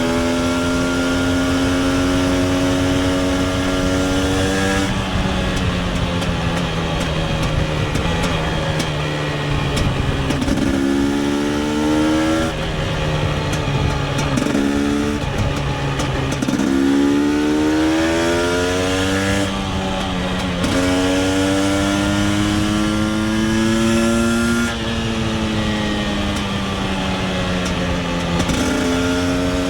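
KTM 250 EXC TPI supermoto's single-cylinder two-stroke engine pulling hard under way. Its pitch climbs several times and drops sharply at each gearchange, then falls away for a few seconds as the bike slows near the end before picking up again.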